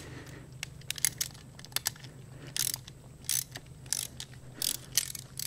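Socket ratchet clicking in short, irregular strokes while backing out the stubborn Torx T30 centre bolt of an AC compressor clutch hub.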